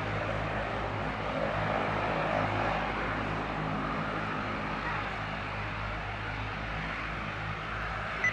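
Aircraft engines running steadily: a continuous rushing noise with a low, even hum underneath that does not rise or fall.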